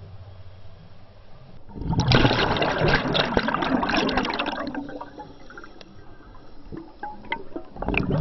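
Scuba air bubbles rushing and gurgling, recorded underwater: a loud burst of exhaled bubbles starts about two seconds in and lasts about three seconds, with another burst near the end. A low steady hum comes before the first burst.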